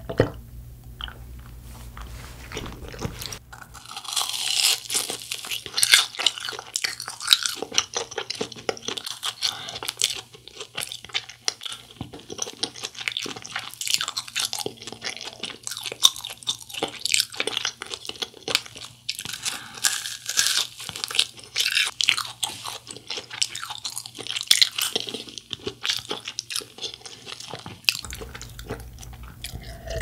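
Close-miked biting and chewing of a fried cheese ball, with dense, irregular crisp crunches of its fried crust from a few seconds in until near the end.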